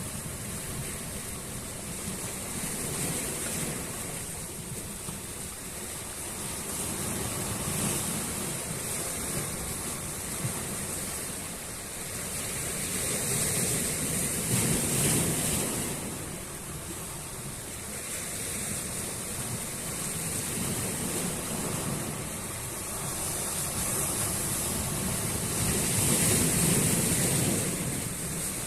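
Sea waves breaking and washing onto the shore in slow surges, swelling and easing every several seconds, loudest about halfway through and near the end.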